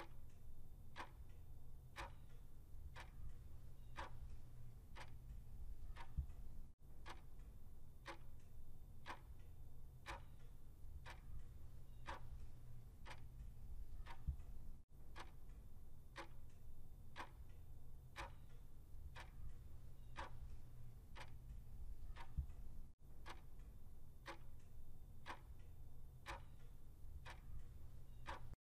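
Clock-tick sound effect marking a quiz countdown timer: a steady, even tick-tock over a low, constant hum.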